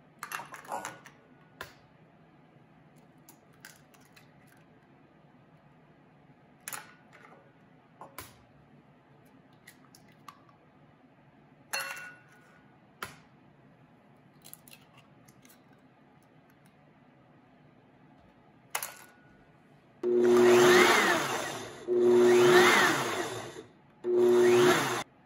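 Eggs cracked into a blender jar with a series of sharp knocks and taps, then a Blendtec blender runs in three short bursts of about two seconds each, mixing the flan custard of eggs, milk and sugar.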